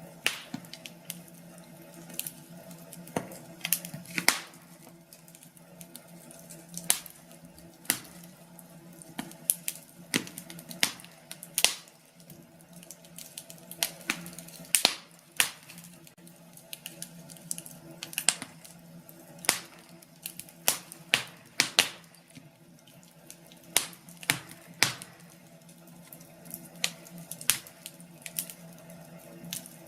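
Wood fire in a fireplace crackling, with frequent sharp pops at irregular intervals over a steady low hum.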